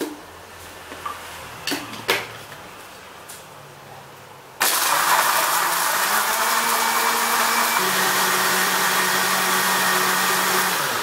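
A couple of clicks as the blender lid is set on, then an electric countertop blender switched on about halfway in, running loudly and steadily as it blends kiwi, soy milk and ice. Its motor hum shifts pitch slightly a few seconds into the run.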